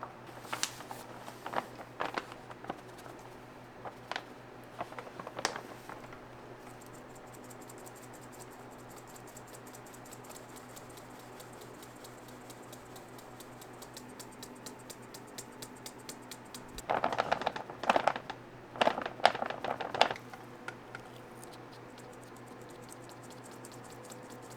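Scattered knocks and scrapes of utensils and pans being handled in a bakery, with a dense burst of clatter about 17 seconds in, over a steady machine hum.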